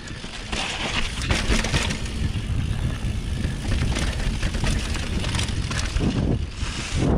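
Mountain bike descending a trail: knobby tyres rolling over packed dirt and rock slabs and through dry fallen leaves, with a steady low rumble, scattered knocks and rattles from the bike, and bursts of leaf crunching.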